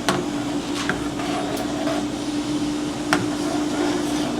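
A spoon stirring Alfredo sauce (butter, cream and cream cheese) in a pan, clinking against the pan four times, over a steady mechanical hum.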